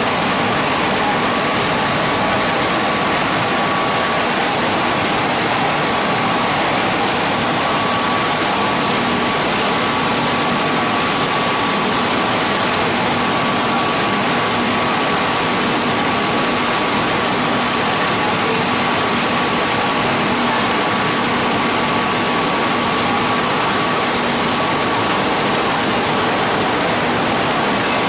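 8 ft hydraulic spindle veneer lathe running, peeling face veneer from a log: a loud, even noise with a thin steady whine that fades near the end.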